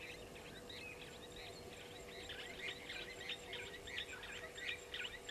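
Birds calling: a busy run of short, high chirps that grows denser and louder about two seconds in, over a faint steady hum.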